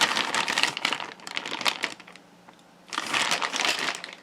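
Plastic packaging crinkling as it is handled, in two bouts with a short quiet gap between them.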